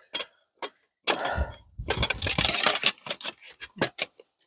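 Rummaging for packaged food: small hard items clicking and knocking, with a longer rustle and a dull thud about a second in.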